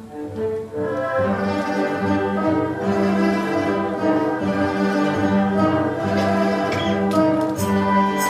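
Chinese traditional orchestra playing, with the bowed erhu section prominent. A thin passage gives way about a second in to the fuller, louder ensemble, and a few sharp percussion strikes come near the end.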